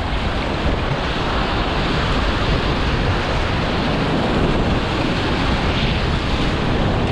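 Whitewater rapids of the Salt River at high flow: a loud, steady rush of churning water around a packraft running through the waves.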